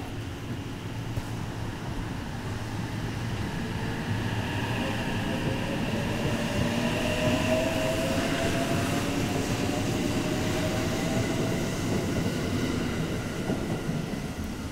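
Electric train moving along a station platform, running and rumbling close by with a motor whine that rises slowly in pitch as it gathers speed. It grows louder through the middle and fades near the end as the train pulls away.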